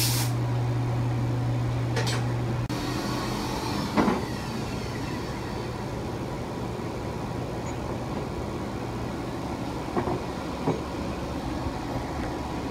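Haas VF-2 vertical machining center running with a steady low hum that drops in level about three seconds in, a short hiss around then, and a few clicks and knocks near four and ten seconds in.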